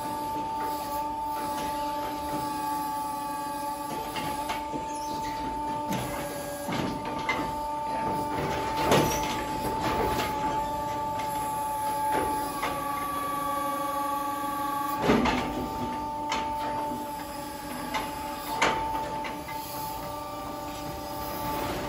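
Hydraulic crane working a grab through lucerne bales: a steady multi-tone machine whine that shifts a little as the arm moves, with a few sharp knocks, the loudest about 9 and 15 seconds in.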